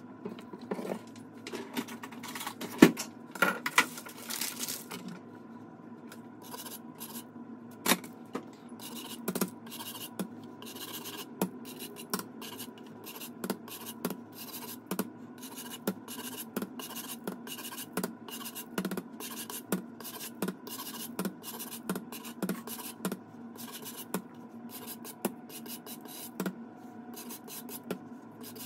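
Repeated rasping strokes on a microplane grater, a little more than one a second: the rim of a baked tart shell being filed down to even it. A few louder knocks come about three seconds in.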